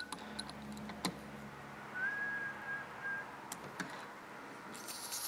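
A person whistling a held note, with a few small clicks of a tool on a tire's valve stem; near the end air starts hissing at the valve stem of a tubeless lawn-tractor tire.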